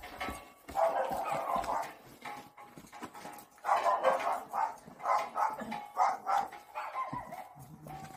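A dog barking repeatedly in bursts: one about a second in, then a quicker run of barks from about four seconds in.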